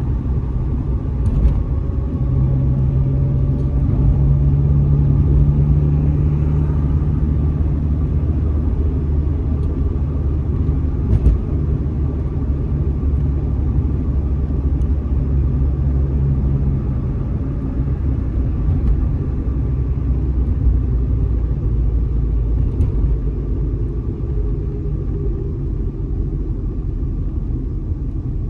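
A car being driven: a steady low rumble of engine and road noise. A steadier engine hum comes in about two seconds in and fades out a little past halfway.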